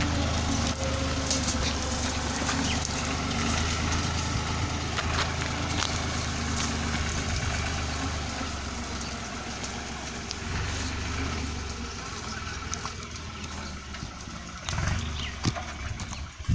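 Tractor engine running steadily, then growing fainter over the second half.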